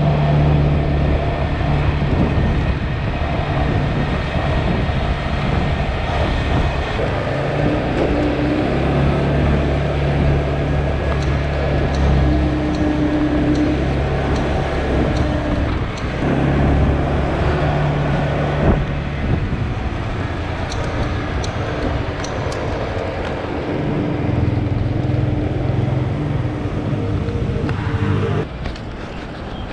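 Steady road traffic and vehicle engine hum, with engine tones swelling and fading as vehicles come and go, and a single sharp knock about two-thirds of the way through.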